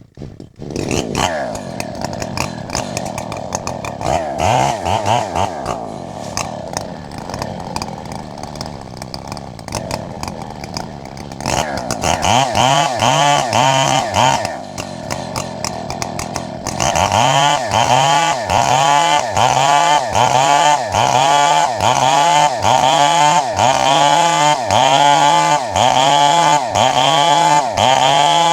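Chainsaw running and cutting wood, its engine pitch swelling and dipping in a steady rhythm a little more than once a second. It gets louder about twelve seconds in and again near seventeen seconds.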